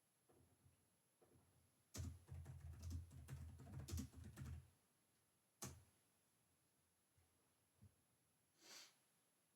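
Computer keyboard typing: a quick run of keystrokes for about three seconds, then a single sharper key press, followed by a few faint clicks and a short soft hiss near the end.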